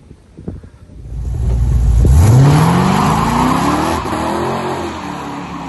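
LSX V8 twin-turbo engine of a 1986 Pontiac Grand Prix 2+2 accelerating hard. A low rumble builds about a second in, then the engine note climbs steeply from about two seconds in before levelling off and easing near the end.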